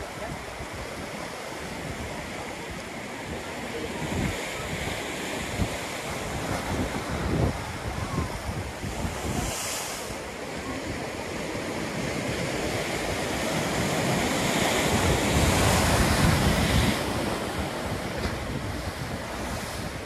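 Ocean surf crashing and foaming around rocks at the foot of a cliff: a continuous wash that swells to its loudest about three quarters of the way through, then eases. Wind buffets the microphone in gusts.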